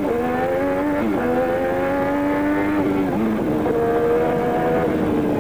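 Lotus 99T's turbocharged Honda V6 Formula One engine at full throttle, heard from the onboard camera, accelerating hard out of a hairpin. Its pitch climbs and drops sharply at each upshift, about a second in and again about three seconds in, then climbs and holds near the end.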